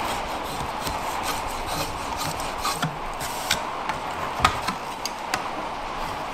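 A drawknife scraping shavings off a wooden spatula blank, with a few sharp knocks of wood and steel as the blank is shifted and the blade set back on it.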